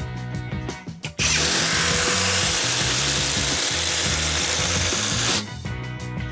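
Bosch 18V cordless impact driver running in one loud, steady burst of about four seconds that starts about a second in and stops abruptly, over background music.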